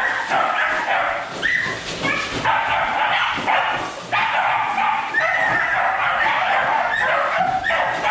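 Several excited dogs barking, yipping and whining over one another without a break, keyed up as they wait to be let out.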